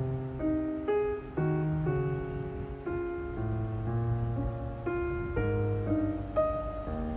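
Background piano music: a gentle melody of steady notes changing about twice a second.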